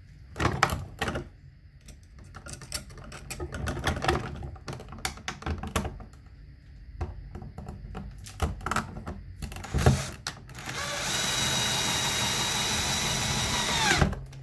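Scattered clicks and knocks of a dryer outlet and screws being handled against a plastic electrical box, then a power drill driving a mounting screw, running steadily for about three seconds with a whine that drops in pitch as it stops near the end.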